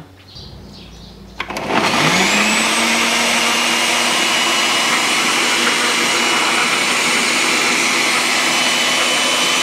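Countertop blender with a glass jar switched on about a second and a half in, its motor whine rising as it spins up and then running steadily, blending a liquid mix of egg white, banana and cacao powder.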